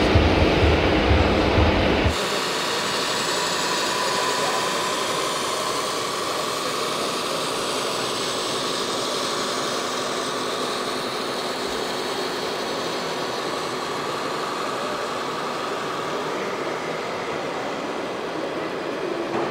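Music with a heavy beat cuts off about two seconds in, leaving a steady machine running noise with faint held whining tones.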